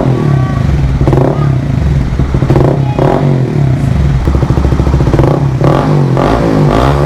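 Honda CBR150R's single-cylinder engine running through an aftermarket Akrapovic slip-on muffler with its silencer insert still fitted, blipped repeatedly so the exhaust note rises and falls several times between idles.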